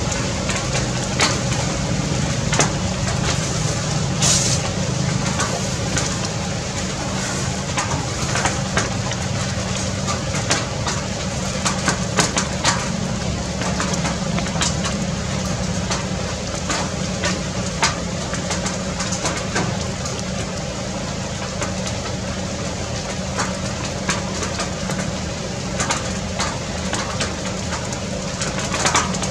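A steady low hum under a noisy background, with scattered sharp clicks.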